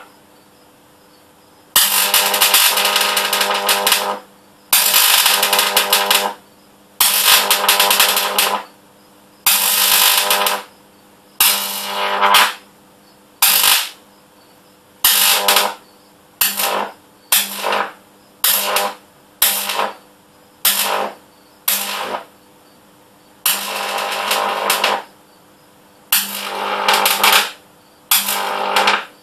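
High-voltage arcs drawn again and again from a microwave-oven-transformer (MOT) stack power supply at about 9,300 volts: a harsh buzzing crackle over a steady hum. It comes in about twenty bursts with quiet gaps between them. The early bursts last one to two seconds, and those in the middle are short and come quickly one after another.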